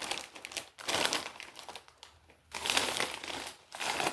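Foil-lined bag of Zapp's Cajun dill Gator-Tators kettle chips crinkling as it is handled and opened, in four bursts with short pauses between them.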